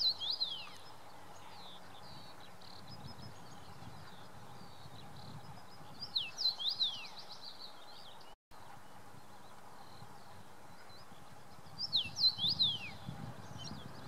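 A small songbird singing short phrases of quick downward-slurred whistled notes, three times about six seconds apart, with fainter chirps between the phrases over a low outdoor hiss.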